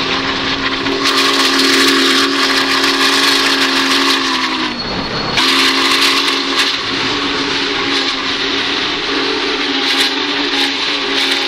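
Union Pacific 844's chime steam whistle blowing a long, sustained chord of several notes. It dips and breaks off briefly about five seconds in, then sounds again. A steady rush of noise runs beneath it.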